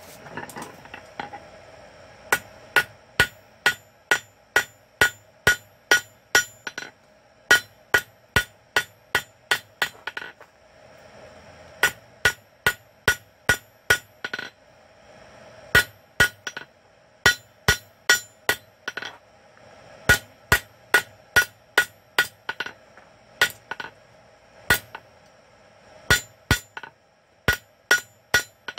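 Hand hammer striking hot quarter-inch steel bar on an anvil, squaring up the forged taper: runs of sharp blows about two to three a second with short pauses between, each blow ringing briefly.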